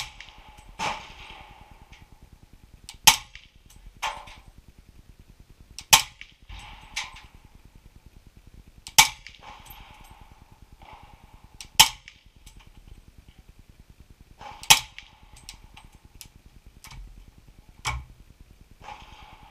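Suppressed .300 Blackout AR-style rifle firing five sharp shots about three seconds apart, the suppressor muting the muzzle blast to a flat crack. Fainter cracks fall between the shots, and a softer knock comes near the end.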